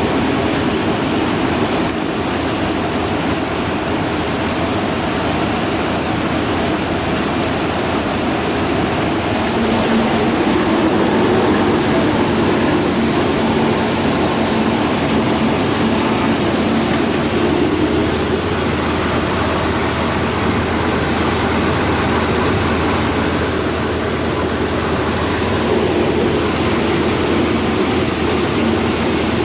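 Satake rice huller running, a steady loud rush of machinery and flowing grain. It is running in the state where it makes an abnormal clunking, which the owner puts down to an old pulley.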